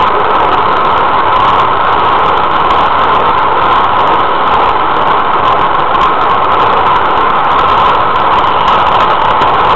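Steady loud rumble and whir of a model train running along its track, heard from a camera riding on the train.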